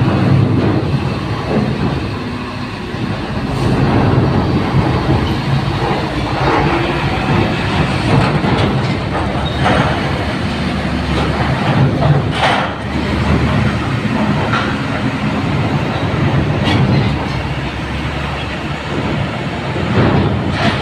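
Heavy trucks driving up a steel ferry loading ramp into the ship's bow door: engines running under load with a steady low rumble, and several loud metallic clanks as the wheels cross the ramp's steel plates and joints.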